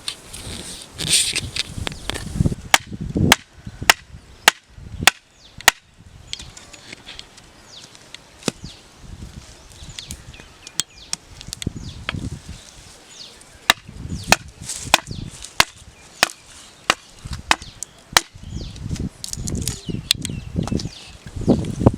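Sharp chopping strokes of a blade striking wood. One run of about six even strikes comes a little over half a second apart, and irregular strikes follow, with handling noise between them.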